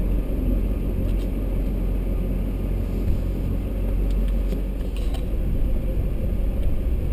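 A full-size 3/4-ton pickup truck driving slowly, heard from inside the cab: a steady low rumble of engine and road noise, with a few faint ticks.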